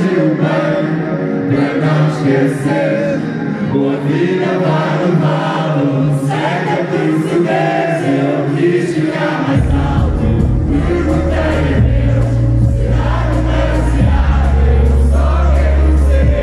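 Live concert music: a male vocalist sings into a microphone over the band's backing track, with many voices singing along. A deep bass line comes in about ten seconds in.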